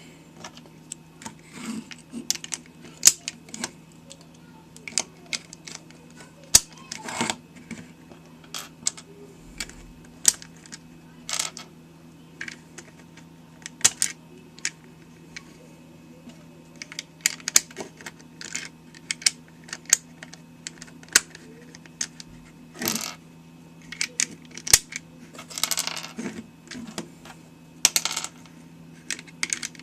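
Plastic pieces of a LanLan Rex Cube twisty puzzle clicking and tapping as they are fitted back into the cube, in irregular sharp clicks about every second, over a steady low hum.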